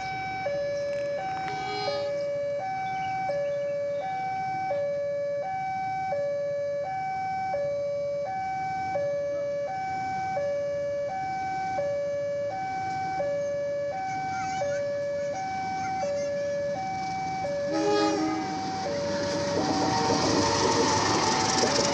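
Railway level-crossing warning alarm sounding its electronic two-tone signal, alternating a low and a high tone about every 0.7 seconds. From about 19 seconds in, the noise of a CC 201 diesel-electric locomotive passing over the crossing rises underneath it.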